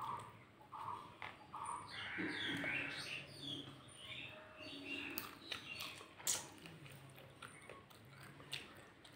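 A crow cawing a couple of times in the first two seconds, then smaller birds chirping, over the soft mouth and finger sounds of someone eating rice and fish curry by hand. One sharp click stands out about six seconds in.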